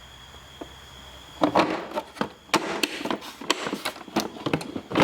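Hand tools being moved about in a metal toolbox drawer: after a quiet second and a half, a quick run of clinks and knocks with a few louder hits.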